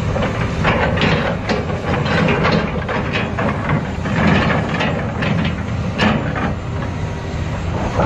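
Hitachi crawler excavator's diesel engine running steadily under load, with irregular metallic clanks and knocks as the boom and grapple work.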